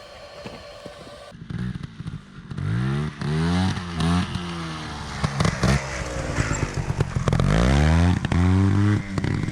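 Enduro motorcycle engine revving in repeated bursts, its pitch rising and falling again and again, with knocks and clatter over rocks. It starts about a second and a half in.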